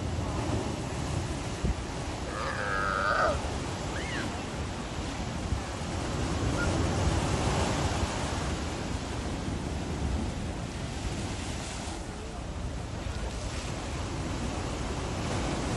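Surf washing and breaking over rocks, a steady rush of water, with one short call from a California sea lion between two and three seconds in.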